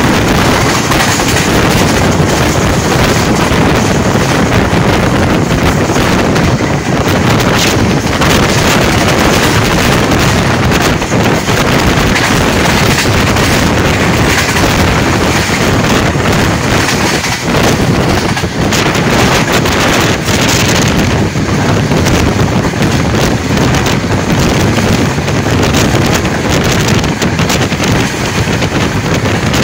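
Wind rushing over the microphone at the open window of a fast-moving express train, over the steady running rumble of the coach on the track.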